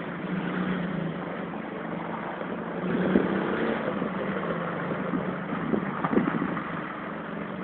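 Steady engine hum, with a small quad bike's engine revving briefly about three seconds in and again about six seconds in.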